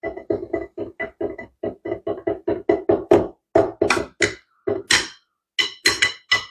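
Drumsticks playing on the Donner DTB-1S silicone practice pad: a quick, even run of strokes, about six a second, each with a short pitched ring. About three and a half seconds in they turn into louder, brighter hits, a little more widely spaced.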